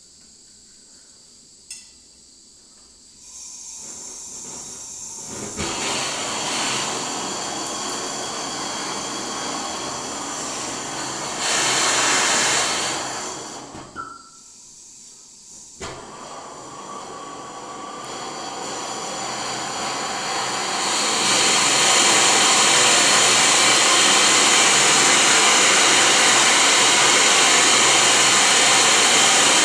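Gas brazing torch hissing, with two sharp clicks about halfway through, then a steady, loud rushing flame for the last third.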